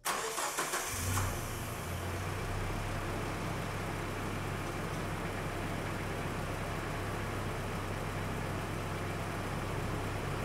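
Nissan KA24E 2.4-litre 12-valve four-cylinder engine idling steadily, with its newly fitted power steering belt and idler pulley turning.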